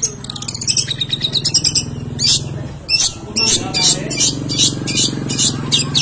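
Long-tailed shrike (cendet) singing a fast, varied song of rapid, repeated high chattering notes, with a short break a little past two seconds.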